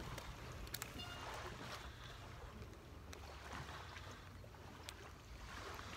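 Faint outdoor ambience on a small fishing boat: a steady low rumble of wind and water, with a few light clicks as a small black crappie is handled and unhooked.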